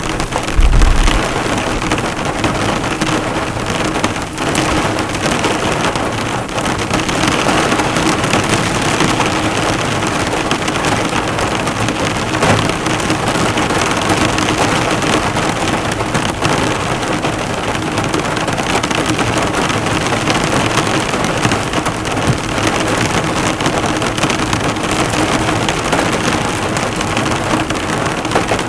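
Heavy rain falling steadily on a car, the drops pattering on the bonnet, with a brief low rumble about a second in.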